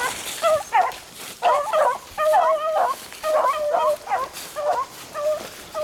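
Beagles baying, more than one voice in a string of short repeated cries that overlap most thickly in the middle: the cry of hounds running a rabbit's scent.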